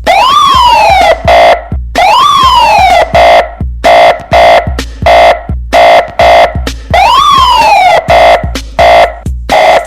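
Electronic 'racha de som' horn-and-siren test track: a siren sweep rises then falls three times, near the start, about 2 s in and about 7 s in. Between the sweeps come rapid, chopped tone blasts over deep bass thumps. It is very loud throughout.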